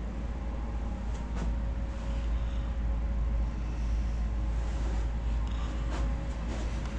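Low steady rumble of a handheld camera being carried while walking, with a faint steady hum and a couple of light knocks of handling.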